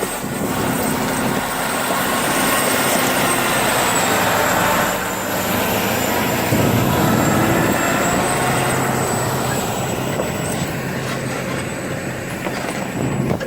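Loaded logging truck's diesel engine running hard under load as the truck creeps up a snowy incline, its pitch shifting a few times.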